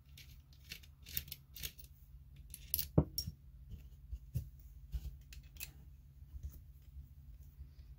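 Scattered small metal clicks and taps as steel Allen keys are picked up and a hex key is fitted into the screws of a paintball marker's body, with one sharper click about three seconds in.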